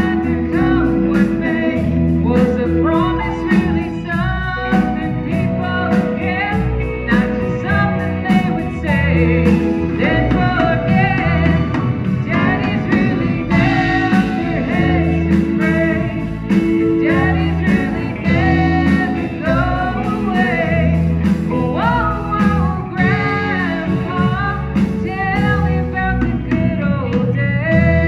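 Live country band playing electric guitar, bass guitar, keyboard and drums, with a woman singing lead.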